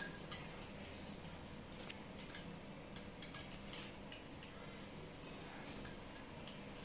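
Faint, scattered light clinks of a spoon against a ceramic bowl during eating, several over a few seconds, over a quiet steady room background.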